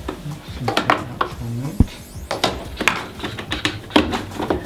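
Plastic clicks and knocks of a Hotpoint washing machine's soap drawer and its housing being worked loose for removal, with one heavier thump about two seconds in.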